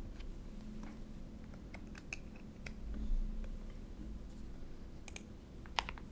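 Typing on a QK65v2 gasket-mount mechanical keyboard with hand-lubed Gateron Milky Yellow Pro linear switches on an FR4 plate: scattered, irregular keystrokes with a muted bottom-out. The sharpest pair of clicks comes near the end.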